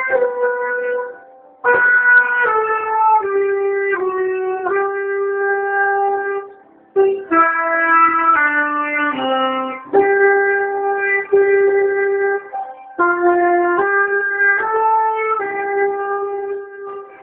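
A single wind instrument playing a simple melody one held note at a time, in several phrases with short breaks between them.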